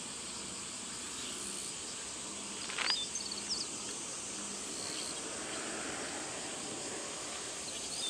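Steady outdoor ambience with a high, constant insect drone, broken by a short high chirp about three seconds in and another near the end.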